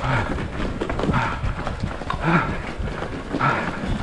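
A half-marathon runner's heavy breathing: a short voiced exhale with falling pitch about once a second, over his rapid footfalls and a steady low rumble of wind on the microphone.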